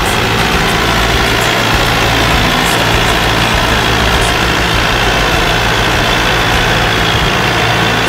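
Ford 7710 tractor's diesel engine running steadily while it pulls a loaded grain trailer.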